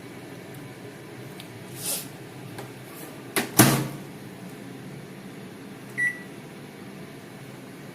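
Convection microwave oven being loaded and shut: a short scrape about two seconds in, then the door closing with a sharp double click, the loudest sound. A single short keypad beep follows about six seconds in.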